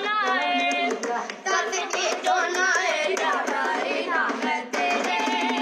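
Boys singing an Indian song together while one slaps out a tabla-style rhythm with his hands on a wooden school desk.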